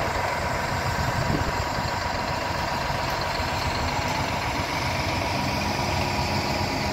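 Heavy diesel engine of a concrete mixer truck idling steadily, a continuous low engine noise with no breaks.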